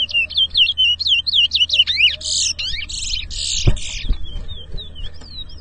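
Towa-towa (chestnut-bellied seed finch) singing a fast chain of whistled, sweeping notes that turn into denser, buzzy trills around the middle, with a soft knock near the middle.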